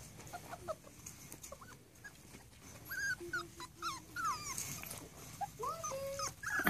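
Rat terrier puppies whimpering and whining in many short, high calls, which grow more frequent in the second half.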